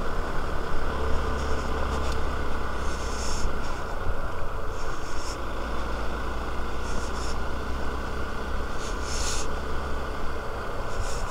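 Hero Xpulse 200's single-cylinder engine running steadily while the motorcycle is ridden, under a heavy low rumble. A few short high hisses come and go, about four times.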